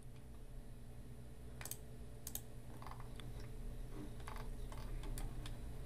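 Faint, scattered clicks from a computer mouse and keyboard, a few seconds apart, over a low steady hum.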